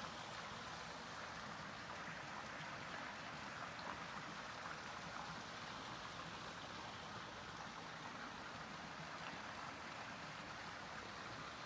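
Faint, steady hiss of background room tone with no distinct events.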